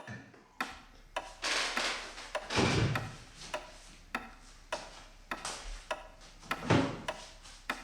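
Dishes and cutlery being handled: a series of separate sharp clicks and knocks, one every half second to a second, with a few short rustling hisses in between.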